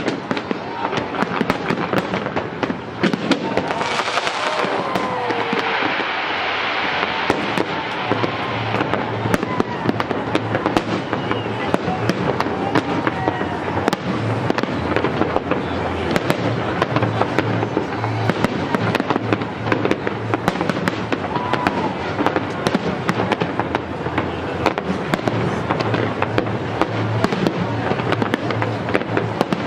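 Fireworks display: a dense, continuous run of bangs and crackling from firework shells bursting, with a thicker crackling hiss for a few seconds about four seconds in.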